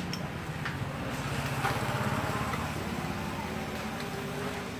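A small engine running steadily with a fast, even pulse, with a few light metal clicks on top.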